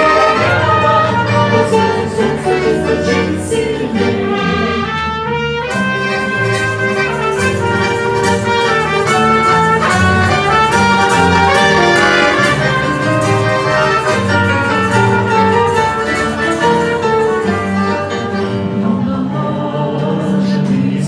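Instrumental interlude of a pop-style song backing track: a brass-like lead melody over bass notes and a steady percussion beat, with no singing.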